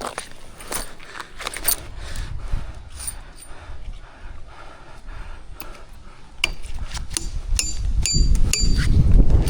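Scattered sharp metallic clinks and knocks, several with a brief high ring, with wind buffeting the microphone and growing louder over the last few seconds.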